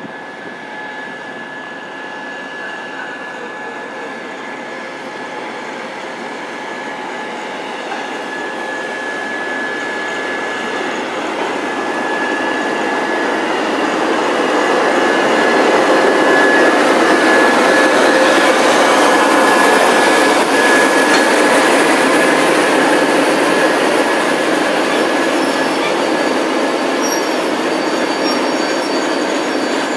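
TEP70BS diesel passenger locomotive running in and passing close by at low speed, growing louder to a peak just past the middle as it goes by, then its passenger coaches rolling past. A steady high-pitched squeal runs throughout, with a few higher squeals near the end, from the brakes and wheels of the train slowing to stop.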